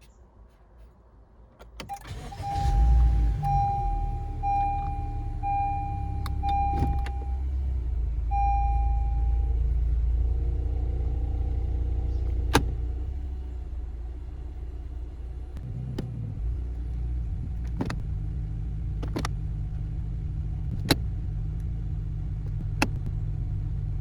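A 2015 Honda Civic's four-cylinder engine started about two seconds in and then idling, with a dashboard warning chime beeping about six times over the first several seconds. The idle drops a little partway through, and a few sharp clicks sound in the second half.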